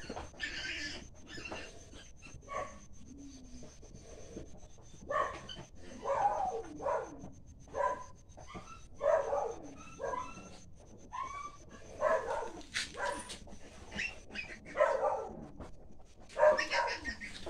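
Newborn piglets squealing and grunting in short, irregular calls, many in quick succession and some rising or bending in pitch, from a freshly farrowed litter.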